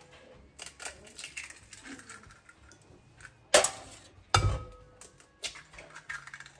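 An egg knocked twice against the rim of a glass mixing bowl, two sharp cracks less than a second apart with the glass ringing briefly after the second. Around them come small crackles and clicks of the eggshell being pulled apart over the bowl.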